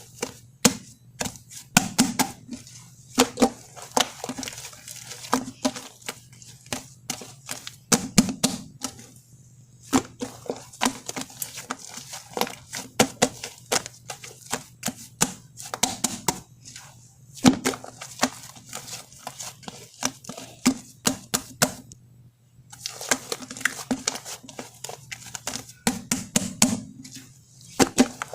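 Shaving-foam slime squished and pressed by hand, making rapid sticky clicks and pops, with brief pauses about ten and twenty-two seconds in.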